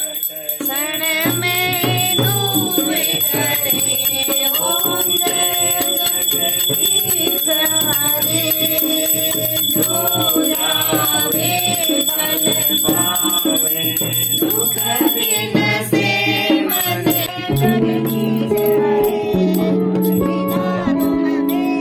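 Group of voices singing a Hindu aarti hymn, with a steady jingling rhythm accompanying them; held instrumental notes come in during the last few seconds.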